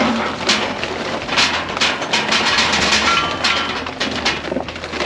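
Oak charcoal briquettes pouring from their bag into a steel charcoal basket, clattering and knocking against the metal and each other in a dense, irregular run of small hard impacts.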